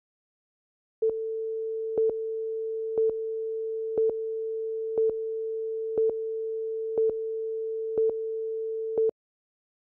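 Steady electronic test tone with a short louder pip once a second, nine pips in all, stopping abruptly about a second before the end: a countdown line-up tone ahead of a commercial.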